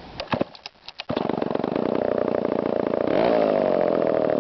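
Homelite XL two-stroke chainsaw starting: a few short knocks from the pull-start, then the engine catches about a second in and runs steadily, its pitch rising and settling back a little after about three seconds.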